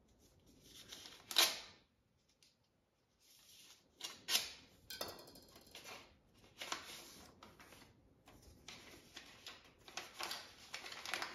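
A paper envelope being slit open with a knife blade, with one sharp rip about a second in. Then comes repeated crisp rustling of paper as the letter is pulled out and unfolded.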